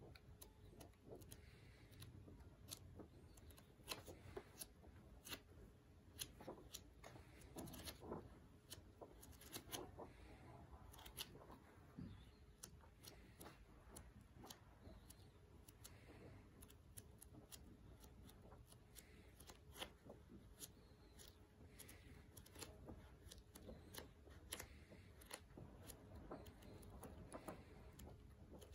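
Paper pages of a softcover book being turned by hand: faint, irregular rustles and soft paper clicks.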